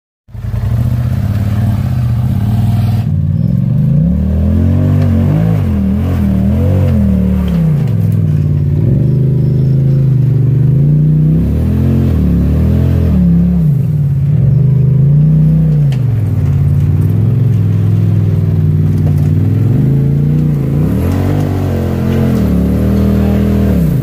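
Side-by-side UTV engine revving up and down over and over under load as it climbs a rock ledge, its pitch rising and falling every second or two.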